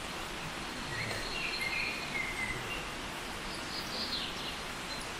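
Steady outdoor background noise with a few faint bird chirps between about one and four seconds in.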